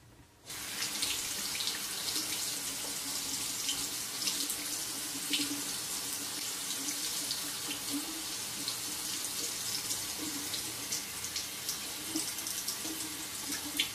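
Water from a bathroom tap running steadily into the sink, turned on about half a second in, with light clicks over the flow.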